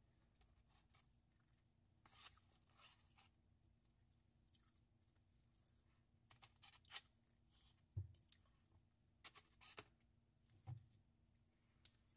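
Faint eating sounds: chewing and scattered soft clicks and scrapes of a plastic fork against a styrofoam meal box, over a faint steady low hum.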